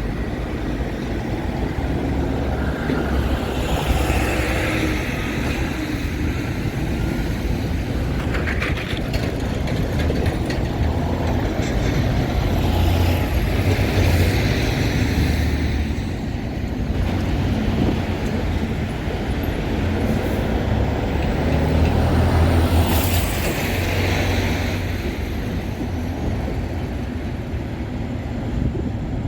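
Freight train rolling past: a steady low rumble of rail cars, with the wheel noise swelling and fading every few seconds.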